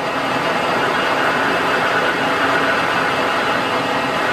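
Metal lathe running steadily at about 440 RPM, its carbide threading insert taking a light starter cut at the end of a high-tensile steel bolt.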